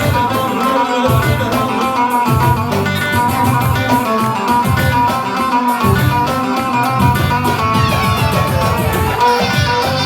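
Live band playing an instrumental passage of a Turkish folk song: quick, busy plucked-string melody over a pulsing bass line, with no singing.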